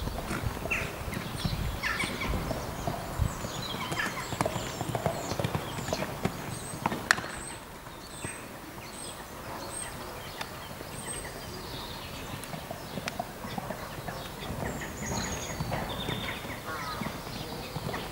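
Hoofbeats of an Anglo-Arabian mare cantering and jumping fences on a sand arena: irregular dull thuds, with one sharper knock about seven seconds in.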